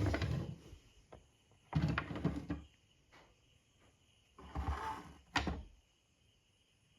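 Three short bursts of scraping and knocking, like something being handled or slid, with a sharp click about five and a half seconds in.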